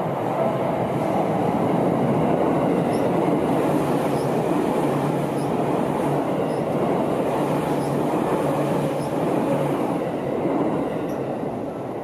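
Seibu 10000 series New Red Arrow electric limited express train passing close by, with a steady noise of wheels on the rails that eases off near the end as it moves away.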